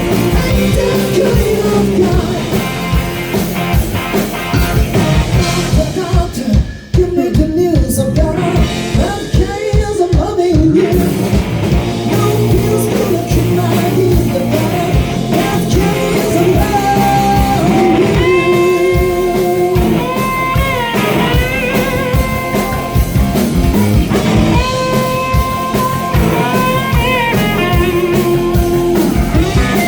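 Live rock band playing with a lead vocal, electric guitar and drum kit. About seven seconds in the band briefly drops out, then comes back in; in the second half a high melodic line bends up and down over the band.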